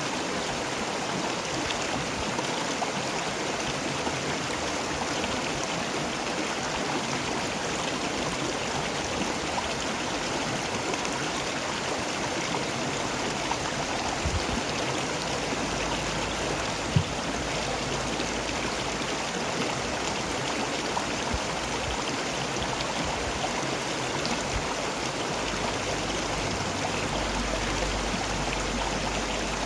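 River water flowing and rushing steadily, with a single sharp click about seventeen seconds in.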